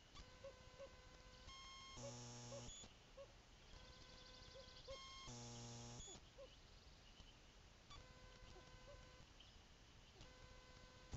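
Faint electronic noise from the nest camera: steady whining tones that step in pitch and end in a short buzz, a cycle that repeats every few seconds. The buzzes are the loudest part.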